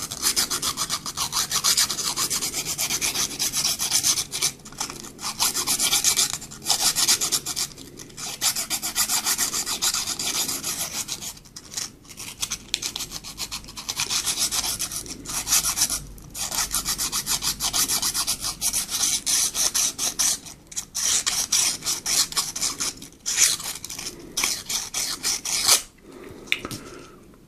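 Hand file rasping on the helmet camera's lens housing in quick back-and-forth strokes, in runs of a few seconds broken by short pauses, cleaning up and smoothing the cut opening.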